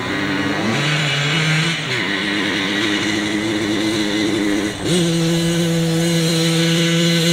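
Tuned two-stroke moped engine revving hard as the bike climbs a grassy hill. Its pitch drops and climbs again at gear changes about two and five seconds in, then holds high and steady.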